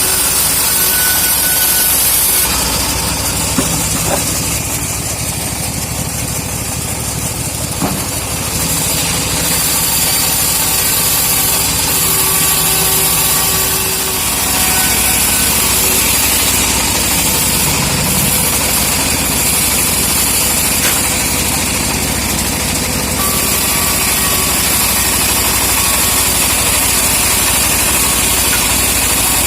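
Engine-driven saw running steadily while cutting teak logs, its high hiss swelling and dropping in stretches as the blade works through the wood.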